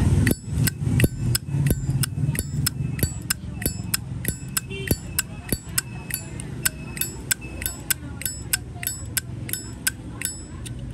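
Brass Zippo lighter lid being snapped open and shut over and over, a run of sharp metallic clicks with a bright ring, about three a second.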